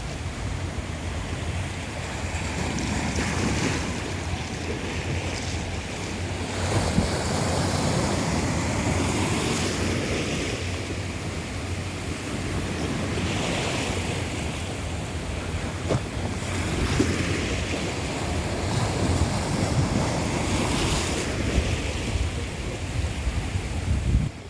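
Sea waves washing in, the surf swelling and falling back every three to four seconds, with wind rumbling on the microphone.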